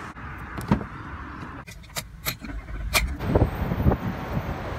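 A few sharp clicks and knocks, then a low, uneven rumble as a Holden Commodore sedan pulls away.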